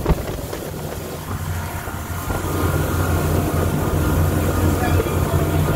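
Four outboard motors on a center-console fishing boat running at speed: a steady low drone over the rush of the wake, growing louder about two seconds in.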